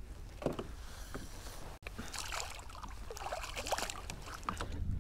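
Water splashing as a freshly caught speckled trout thrashes at the surface on a stringer beside a kayak, a few light knocks first, then a busy stretch of splashing in the second half.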